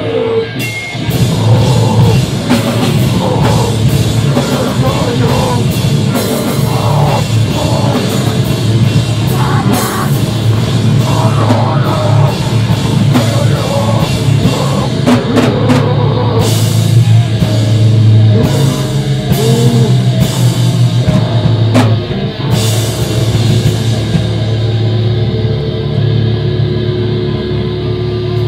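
Screamo band playing live: loud distorted electric guitars and bass over a drum kit with crashing cymbals. About four seconds before the end the cymbals drop out and the guitars carry on.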